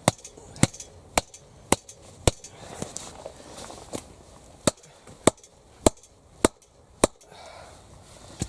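Hand-struck blows driving wooden parts further into their holes: sharp knocks, five about twice a second, a pause of about two seconds, then five more.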